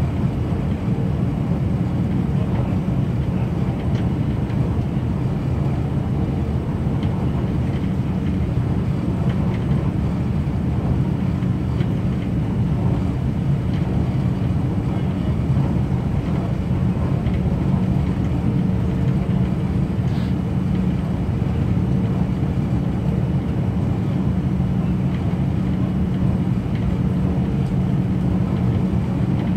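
Minuetto diesel multiple unit running at steady speed, heard inside the passenger cabin: a steady low engine drone mixed with the rumble of the wheels on the rails.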